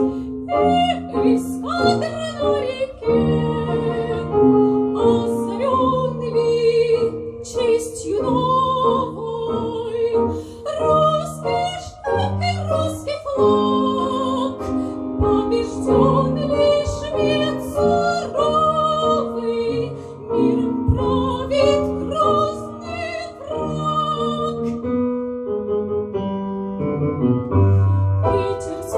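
Classical, operatic-style singing with vibrato over a piano accompaniment played from a recorded backing track.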